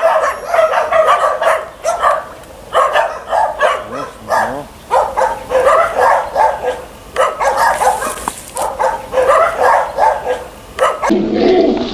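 A dog barking over and over, a long run of short, loud barks about one or two a second, giving way near the end to a duller, lower sound.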